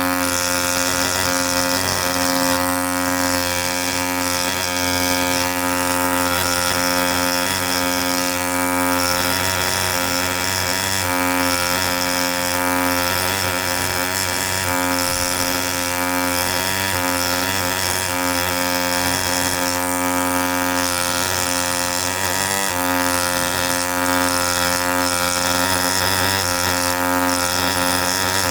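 ZOIC PalaeoTech T-Rex pneumatic air scribe running continuously: a steady pitched buzz that changes briefly every few seconds.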